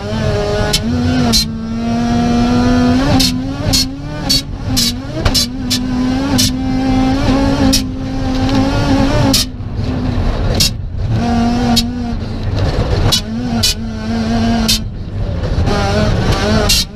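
Mazda RX-7 Group B rally car's rotary engine, heard from inside the cabin, running hard at high revs at a nearly steady pitch. It lifts off briefly about nine and a half, ten and a half and fifteen seconds in. Many short sharp cracks punctuate it throughout.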